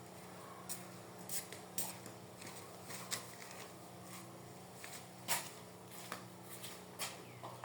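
Small 5 W portable electric fan running with a steady low motor hum, with a string of sharp clicks and knocks from handling throughout.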